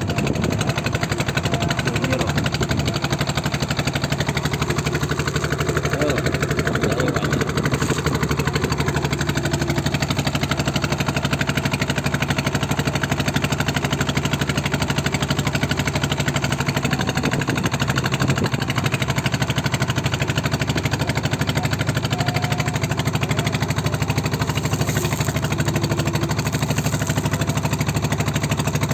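A small engine running steadily at an even speed throughout, with a rapid, even firing beat.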